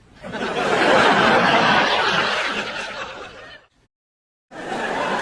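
Sitcom-style audience laugh track: a crowd laughing, swelling quickly and fading out after about three and a half seconds. After a second of silence, another burst of crowd laughter starts near the end.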